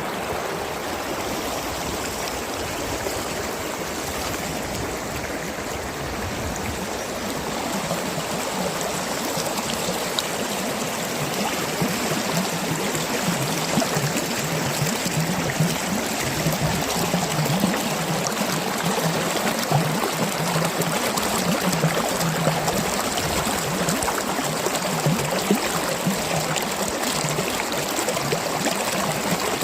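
Mountain stream flowing, a steady rush of water with gurgling, growing a little louder about a quarter of the way in.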